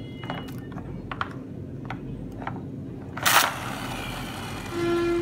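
Hard plastic toy bus being handled among other plastic toys: a few light clicks and taps, then one louder clatter about three seconds in.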